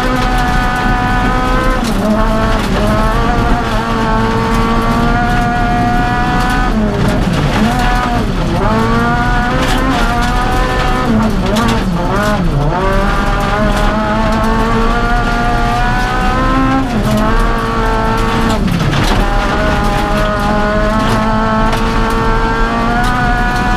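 Honda Civic Type-R rally car's four-cylinder engine at high revs, heard from inside the cabin. It climbs and drops sharply at each gear change, with a run of quick drops and sweeps around the middle as the car brakes and downshifts for corners, over constant tyre and gravel noise.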